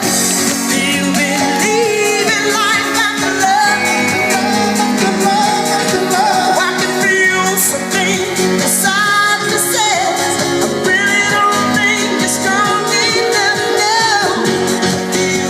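A pop-style song with a singing voice over instruments and a steady beat.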